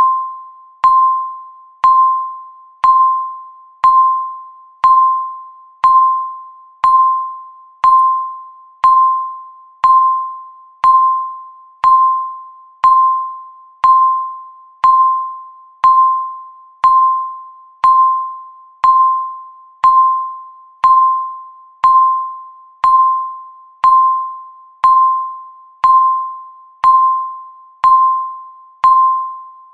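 Countdown timer's electronic beep, one clear mid-pitched tone sounding once a second. Each beep starts sharply and fades away before the next.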